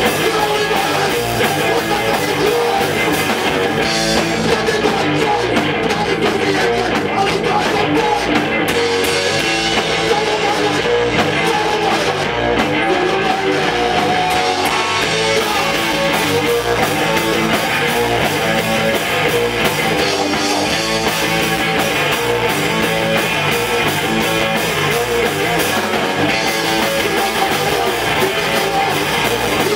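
Hardcore punk band playing live, loud and without a break: electric guitar over a drum kit.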